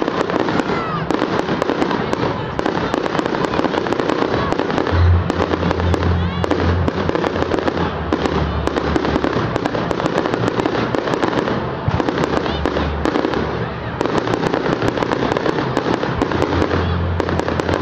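Aerial firework shells bursting in a dense, continuous barrage of bangs and crackling, with heavier deep booms about five seconds in and again near the end.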